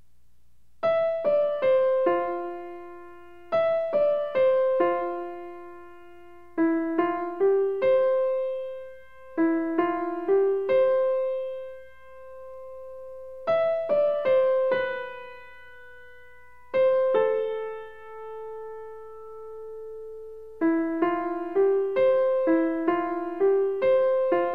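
Background music: a gentle solo piano melody in short phrases of struck notes that ring and fade, with brief pauses between phrases.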